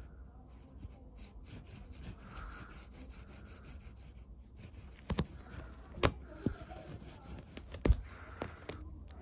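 A cat playing with a small toy on carpet: faint rustling and rubbing, with a handful of sharp taps and knocks in the second half.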